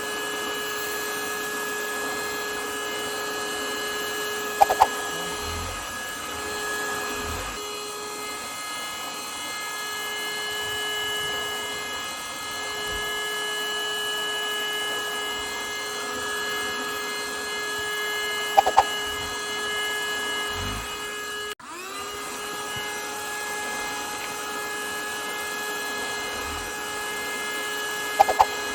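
Parkside PHSSA 20-Li D2 cordless hand-held vacuum cleaner running with a steady high-pitched motor whine. About 21 seconds in, it cuts out for an instant and spins back up to speed, its pitch rising. Three brief high squeaks fall across the run.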